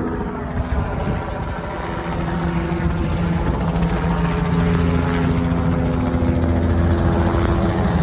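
Police helicopter flying overhead: a steady rotor and engine drone that grows louder a couple of seconds in.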